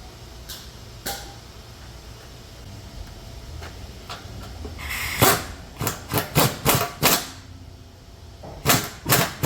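Hammer knocking on the car's exhaust pipe and clamp: a quick run of about six sharp metal strikes halfway through, a short pause, then another run near the end.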